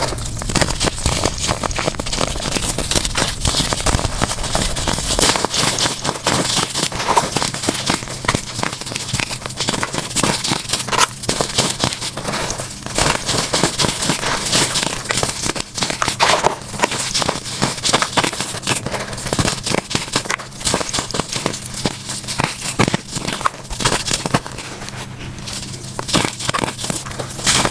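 Dried baking soda blocks being crushed, making a dense, continuous crunching and crackling with no real pauses.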